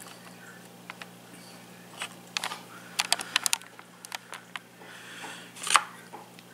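Light clicks and taps of a plastic fork against a plastic meal tray while picking up a carrot, with a quick run of clicks about three seconds in and another click near the end.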